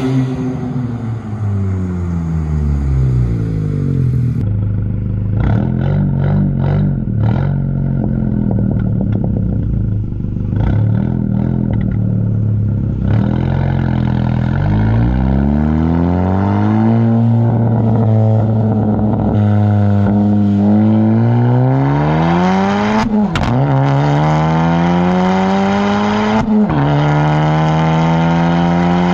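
Honda Civic Si's turbocharged 1.5-litre four-cylinder running through a PRL front pipe and downpipe and a MAP Performance catback with race muffler, driven hard. The exhaust note falls as the car slows, holds for a while, then climbs under acceleration, with two quick upshifts in the last third.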